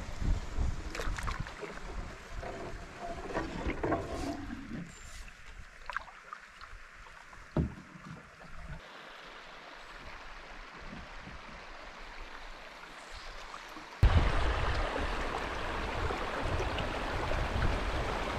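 Canoe paddle strokes through calm water, with splashes and light knocks. These thin out to a few drips and clicks. About fourteen seconds in, a steady rush of water spilling over a beaver dam starts suddenly.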